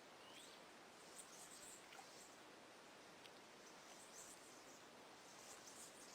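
Faint outdoor ambience: a low hiss with scattered faint, high chirps and a few short rising calls from small birds or insects.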